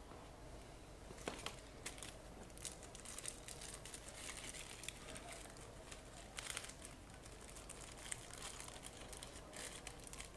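Faint, scattered clicks, scrapes and rustles of a small screwdriver and hands working on the plastic display bezel of a ThinkPad T500 lid.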